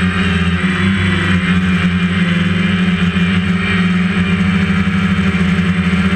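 DJI Phantom quadcopter's motors and propellers buzzing steadily in flight, recorded up close by its onboard camera: a loud, even hum with a rushing hiss over it.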